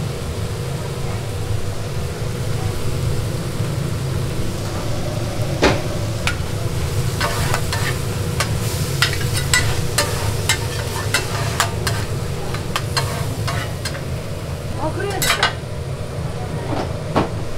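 Pork intestines and cabbage in chili sauce sizzling on a flat steel griddle, over a steady low hum. From about six seconds in, a metal spatula scrapes and clacks against the griddle in a run of quick strokes, easing off near the end.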